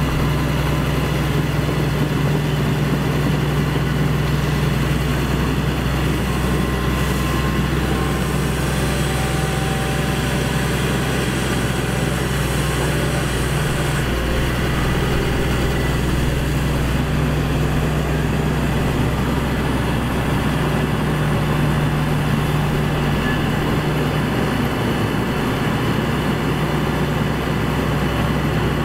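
Excavator's diesel engine running steadily at a constant low pitch.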